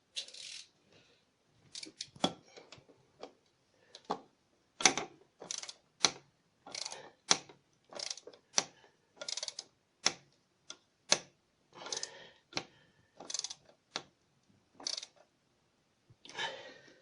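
Light irregular clicks and clacks of small hard tools being handled, about one or two a second, as a screwdriver bit is picked out and fitted.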